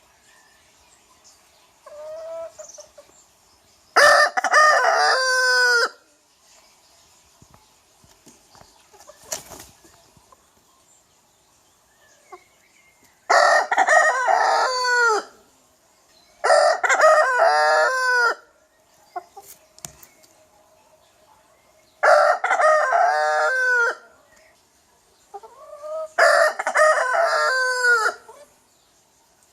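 Rooster crowing: five loud cock-a-doodle-doo crows, each about two seconds long and ending in a falling note, spaced several seconds apart. A shorter, softer call comes about two seconds in.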